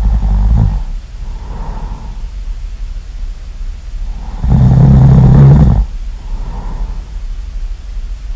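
Really loud snoring in slow cycles. A rough, rattling snore on the in-breath ends just under a second in, and another comes about four and a half seconds in, lasting over a second. Each is followed by a softer, breathy out-breath.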